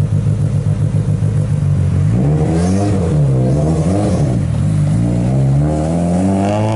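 Mitsubishi Lancer Evolution's turbocharged four-cylinder engine idling with a lumpy, pulsing beat, then revved up and down twice and climbing steadily in pitch as the car pulls away.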